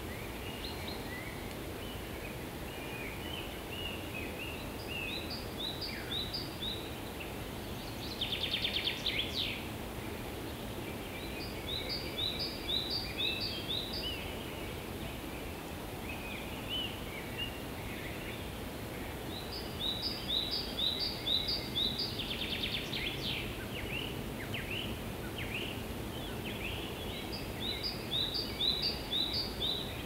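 Several songbirds singing in a spring birch wood. One repeats a short phrase of five or six paired high notes about every seven to eight seconds, another gives a brief fast trill twice, and scattered chirps fill the gaps, all over a steady low background rumble.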